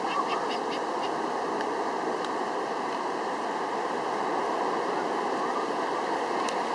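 Steady wash of ocean surf on a beach, an even hiss with no breaks, with a few faint light taps in the first second.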